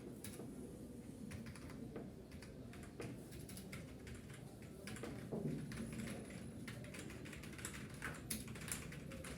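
Typing on a computer keyboard: quick, uneven key clicks.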